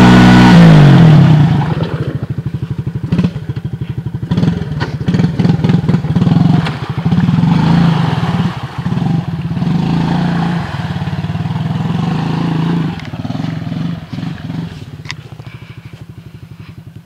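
ATV engine revving high, the revs falling about a second in, then running on at lower revs with scattered clatter as the quad churns through mud; it eases off to a quieter run near the end.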